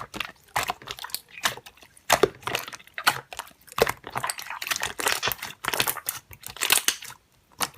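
Slime being pressed and worked by hand, giving irregular crackling and popping clicks.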